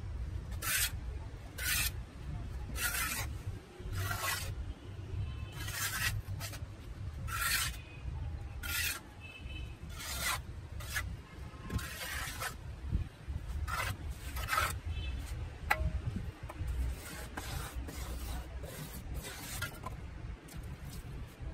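Small trowel scraping and pressing a stiff, damp cement mix into a plastic grill-tile mould, in short, irregular scraping strokes about one a second.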